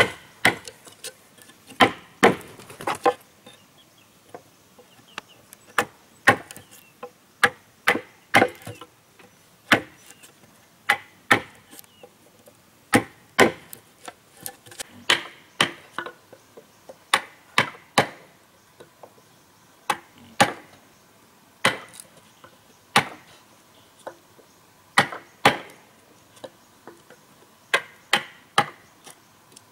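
A hand tool striking wood in repeated blows, irregular but roughly one a second, some coming two in quick succession.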